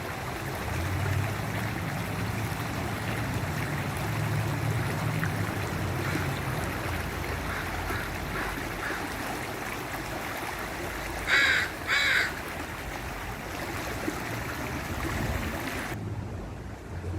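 Waterfall rushing steadily. A bird calls twice, loud and short, about eleven seconds in, with fainter calls a few seconds earlier.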